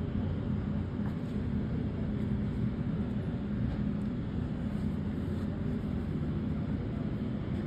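Fire engine's engine idling with a steady low rumble.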